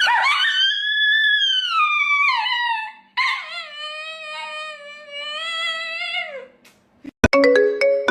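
Dog giving two long, drawn-out vocal yawns, the first sliding down in pitch and the second held steady before dropping at the end. Near the end a click is followed by a marimba-like tune.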